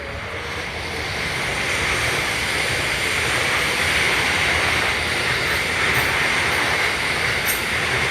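Electric train running along the station platform: steady wheel-and-rail noise that builds over the first couple of seconds and then holds.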